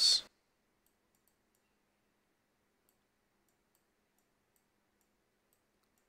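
Near silence with faint, irregular ticks of a stylus tapping on a tablet screen while handwriting, after the tail of a spoken word.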